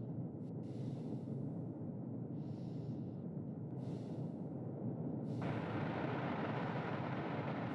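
Slow breaths of a sleeping person over a steady, low storm rumble of wind and rain; the breaths come as soft swells of hiss, and a louder, fuller hiss sets in about five seconds in.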